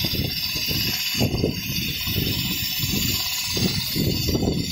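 Richpeace computerized pattern sewing machine running, its needle head stitching a quilted panel while it moves across the frame, with a steady high machine whine over a fast low chatter.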